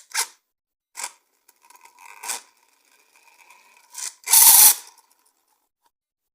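Handling noise from toys and their packaging: a series of short scrapes and rubs, the loudest a half-second scrape a little past four seconds in, with a faint steady whine under the middle of it.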